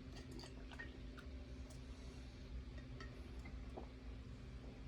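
Quiet room tone: a low steady hum with a few faint scattered clicks.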